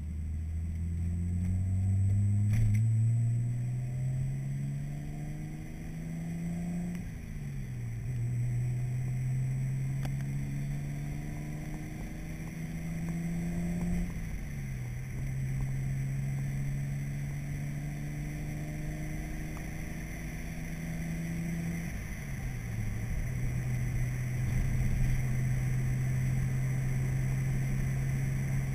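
Car engine heard from inside the cabin, accelerating through the gears. Its pitch climbs steadily and drops back at three upshifts, about seven, fourteen and twenty-two seconds in, then holds steady at cruise over tyre and road noise.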